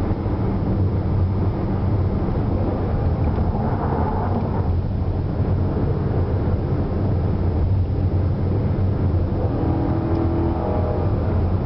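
Car engine running steadily under throttle, heard from inside the cabin, with a low, even drone and road noise.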